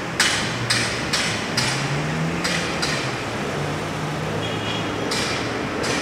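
Hammering: about eight sharp knocks at uneven intervals, most in the first three seconds and two more near the end. A steady low engine hum from the street runs beneath them.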